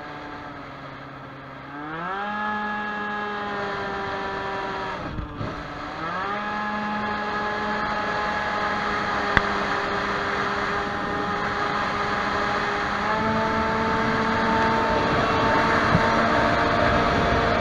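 Tuned two-stroke scooter engine (Stage6 Racing 23hp High End kit on a Baotian Falcon 50R) pulling at full throttle. The revs climb about two seconds in, dip briefly around five seconds, then hold nearly steady while the speed climbs past 100 km/h and the wind rush grows louder. The owner says it is running a bit rich in the heat.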